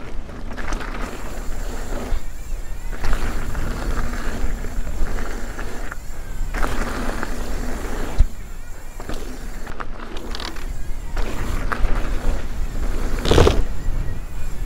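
Steel hardtail mountain bike rolling fast down a dirt trail: tyre noise over packed dirt with wind buffeting the microphone, rising and dropping with the terrain, and a heavy thud near the end as the bike lands.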